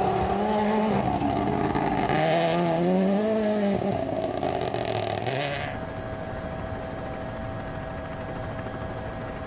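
Rally car engine revving up and down as the driver works through the gears, dying away after about six seconds into a quieter steady hum.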